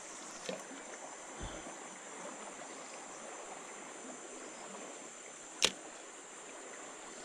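Faint riverside ambience: a steady high-pitched insect drone over a soft hiss. One sharp click about five and a half seconds in.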